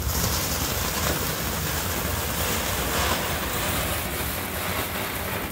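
Ground firework fountain burning in the rain: a steady loud hiss of spraying sparks that cuts in suddenly and eases slightly near the end, over low wind rumble on the microphone.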